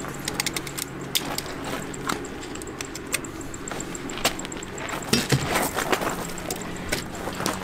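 Scattered clicks and knocks of a rifle and shooting gear being handled, with gravel crunching and rustling as the shooter drops into the prone position.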